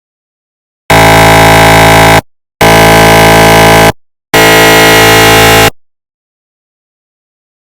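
Recreated GE MR750w 3-tesla MRI scanner pulse sequence: three loud, steady buzzing tones, each a little over a second long with short gaps between them. The third buzz is slightly different in pitch.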